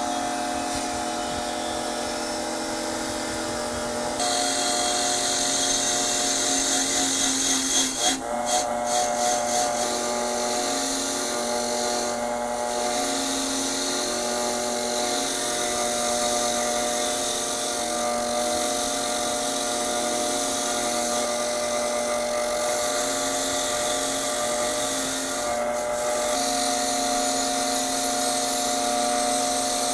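A small power tool, such as a drill or rotary tool, running steadily with a high whine. Its sound wavers briefly about eight seconds in.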